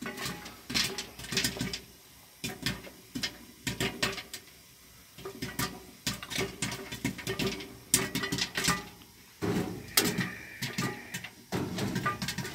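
Irregular clinks and knocks of a small metal teapot being handled and set down on a gas heater's metal top, over a faint steady hum.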